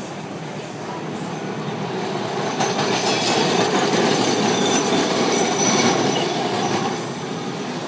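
Vintage orange Milan-built Peter Witt streetcar passing close by, its steel wheels rumbling and clattering on the rails. The sound swells, carries a thin high wheel squeal for a few seconds at its loudest, and eases off near the end as the car moves away.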